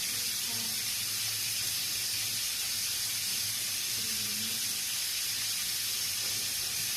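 Steady hiss of water running from a tap into a sink while hands are washed with soap.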